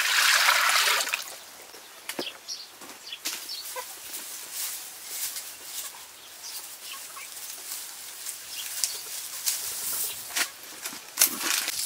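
Water poured into a steel wok for about the first second, then rustling and cutting of lemongrass stalks with a knife, with poultry calling now and then. A sharp click near the end is the loudest moment.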